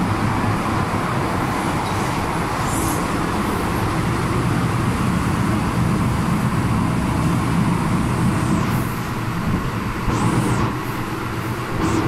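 MTR M-Train electric multiple unit heard from inside the passenger car while running: a steady rumble and hiss of wheels on rail with a low motor hum. A few brief high-pitched squeals come in near the end.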